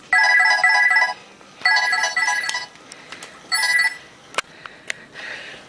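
Phone ringtone: three bursts of a trilling electronic melody, the first two about a second long and the third shorter. A couple of sharp clicks follow near the end.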